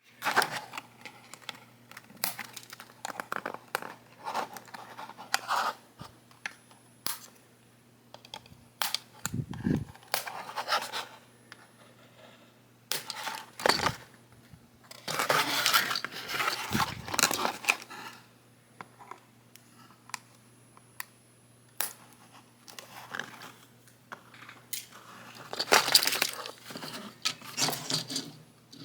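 Toy packaging being cut and pulled apart to free an action figure from its card tray: irregular snips, clicks and plastic crinkling and tearing, with longer stretches of rustling about halfway through and again near the end.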